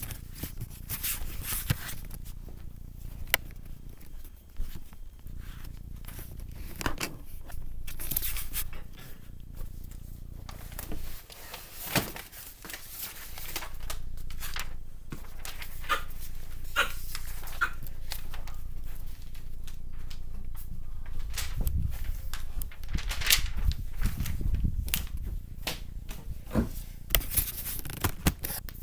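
Handling noise from a handheld camera being moved around: many short clicks, rubs and scrapes against the device, with some bumps.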